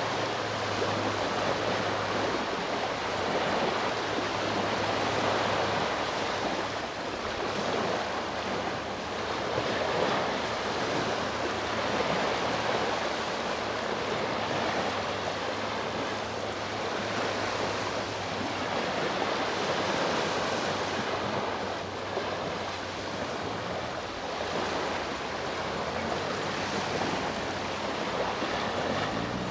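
Sea waves washing onto the shore: a continuous rushing wash that swells and eases every few seconds.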